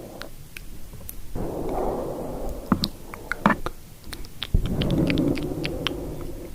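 Something rubbing directly on the microphone, in two spells of low, muffled rustling. Scattered soft, wet mouth clicks fall between and over them.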